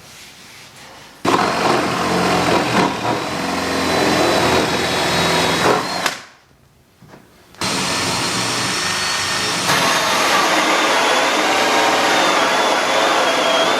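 Electric power tool running under load in two long runs: the first starts about a second in and stops near six seconds, the second starts again near eight seconds and keeps going, with a high whine that wavers near the end.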